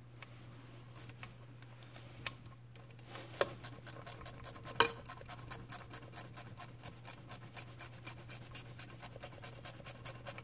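Ratcheting wrench clicking steadily, about three to four clicks a second, as it backs off a connecting rod cap bolt inside a Briggs & Stratton small engine. A couple of sharper metal knocks come a few seconds in, before the steady clicking starts, all over a faint steady low hum.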